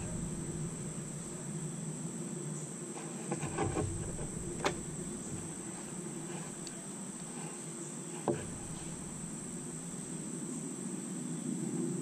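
Steady high-pitched chirring of insects, with a few sharp little clicks of a stainless-steel Leatherman Wave Plus multitool being handled. The clearest clicks come a little before halfway and about two-thirds of the way through.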